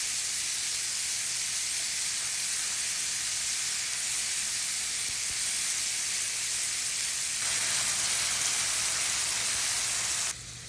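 Cubed ribeye steak bites searing in a hot pan, sizzling steadily. The sizzle gets a little louder about seven seconds in and drops off abruptly near the end.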